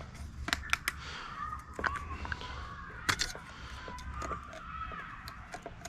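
Motor oil glugging and gurgling out of a quart bottle into the engine's oil filler, with scattered sharp clicks, as the engine is topped up at the end of an oil change.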